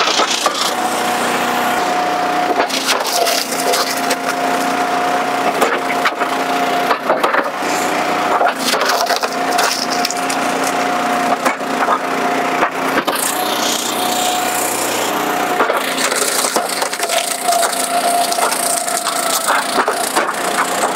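Commercial hydraulic log splitter forcing northern red oak through a box wedge, the wood cracking and splintering continuously over the machine's steady running. A thin steady whine drops out and returns several times.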